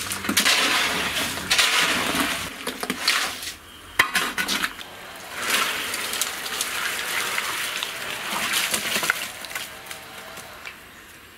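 Masonry tools scraping and clinking in wet cement mortar, in repeated strokes of a second or two, with a sharp knock about four seconds in and a quieter stretch near the end.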